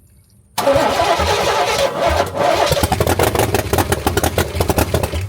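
C3 Corvette V8 cranking over on the starter with gas poured into the carburetor, because the fuel pump is not delivering fuel. It starts suddenly about half a second in, turns over in a fast even rhythm, and cuts off just before the end without staying running.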